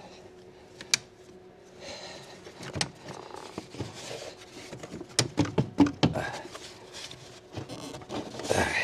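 Hand work on the plastic air box and its fittings in a car's engine bay: scattered clicks, taps and rustling, with a sharp click about a second in and a quick run of clicks and knocks around five to six seconds.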